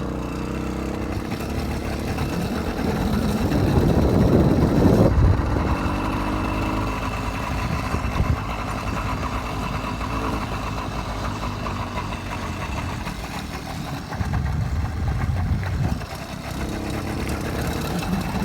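80cc two-stroke motorized-bicycle engine running at idle to warm up. It gets louder for a moment about four seconds in, cuts back sharply, and swells again briefly near the end.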